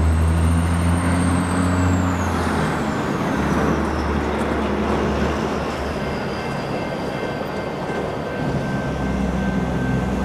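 Electric suburban train slowing, its traction-motor whine falling slowly in pitch over a steady low hum.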